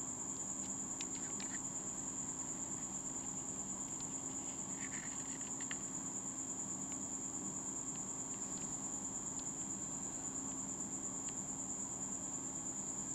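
A steady, unbroken high-pitched insect trill, typical of a cricket, over a low hum, with a few faint ticks.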